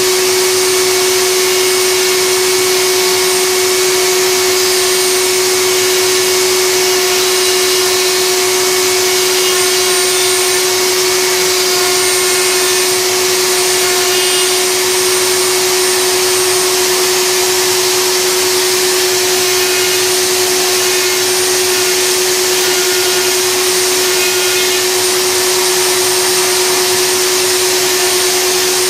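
Table-mounted router running steadily at full speed with a strong, even whine, its 3 mm round-over bit rounding the edge of a wooden handle turned against it.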